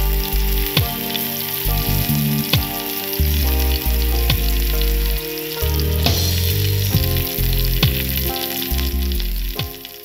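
Chicken breasts frying in hot extra virgin olive oil in a nonstick pan: a steady sizzle with scattered pops and crackles of spitting oil, under background music.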